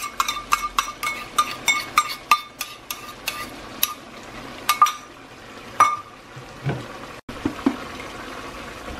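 A spoon clinking and scraping against a small glass bowl as ketchup is scooped out, three or four quick ringing taps a second, then a few louder knocks about five and six seconds in. The chicken sizzles steadily in the pot underneath.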